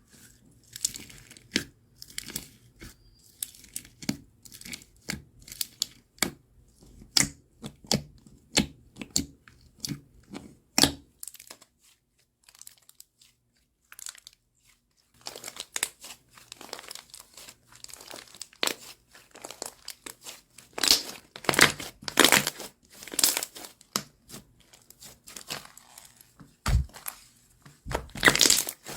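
Slime being squeezed and pressed, giving a run of sharp crackles and pops, with a pause of a few seconds just before the middle.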